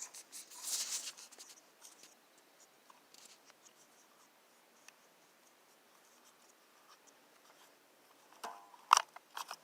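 Hands and small tools working on a radio-controlled car: faint scrapes and small clicks of plastic and metal, a short rustling scrape about a second in, and a few sharper clicks near the end. It is the car being opened up to check a drive gear that has come loose.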